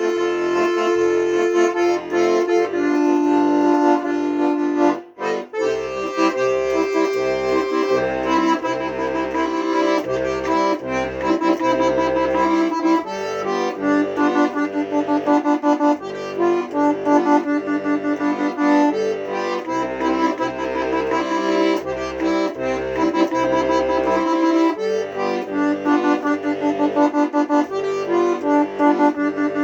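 Accordion playing a tune in chords over a bass line, with a brief break about five seconds in and quick repeated short notes later on.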